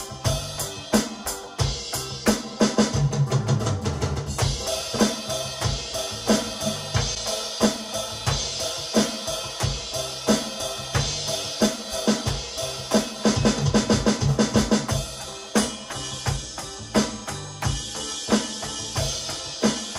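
Alesis Crimson II electronic drum kit played in a steady groove of kick, snare and cymbal hits over a backing music track, with bursts of faster fills about three seconds in and again past the middle.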